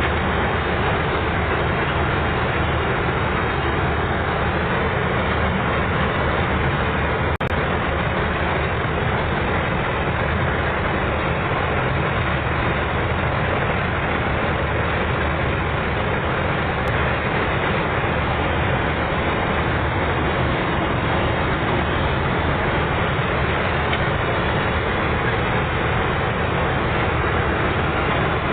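Chardikala combine harvester running, a loud, steady mechanical noise that does not change.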